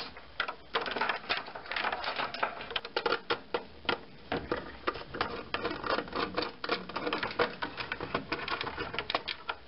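A nut driver backing out the small 1/4-inch hex-head screws that hold a washing machine's control board, with a dense run of irregular small clicks and scrapes of metal on metal and plastic.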